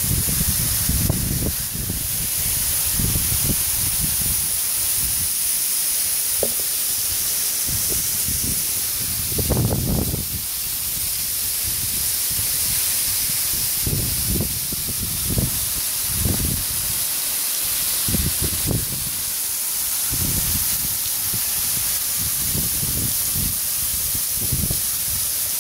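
Steady hiss of Tews Falls' water and spray falling from the rock overhang, heard from behind the falls. Irregular low rumbles come and go throughout, from wind and spray buffeting the microphone.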